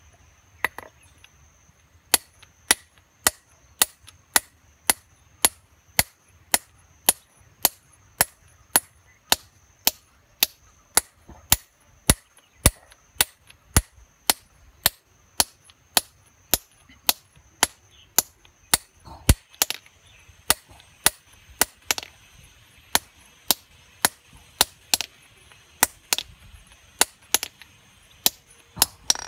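Hand hammer striking a chisel held against a stone slab: sharp taps at an even pace of nearly two a second, cutting into the stone.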